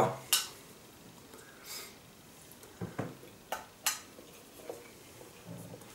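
A metal spoon tapping and scraping in an open tin can of sweet corn: a handful of light clicks, most of them about three to four seconds in.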